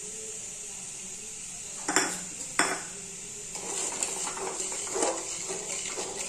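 Sugar and water being stirred in a kadai to make sugar syrup: a utensil knocks sharply against the pan twice, then scrapes around it in repeated stirring strokes.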